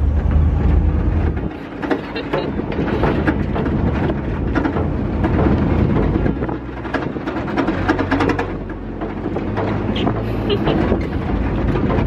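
Wind buffeting the microphone over the low rumble of a moving boat's engine. The rumble is heaviest for the first second or so, then eases.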